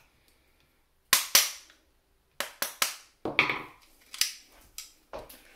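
A series of sharp knocks and clacks from hand tools being handled and set down on a hard tabletop during disassembly of an airsoft rifle. The loudest pair comes about a second in, followed by several more scattered knocks.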